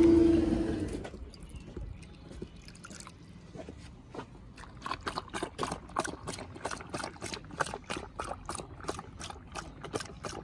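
A dog lapping water from a bowl: quick, regular wet laps, about three or four a second, starting about two seconds in. At the very start a steady tone fades out within the first second.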